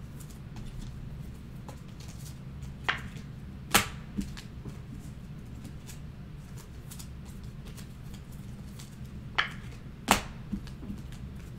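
A handful of sharp light taps and clicks as trading cards are handled and set down on a table, the loudest about four seconds in and about ten seconds in, over a steady low hum.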